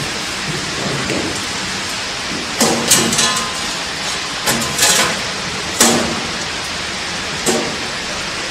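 Stainless-steel sheet-metal panel being handled and fitted against a bucket elevator's steel frame: a handful of sharp metallic clanks and knocks, some with a brief ring, in two clusters about three and five seconds in, then single knocks later. A steady hiss runs underneath.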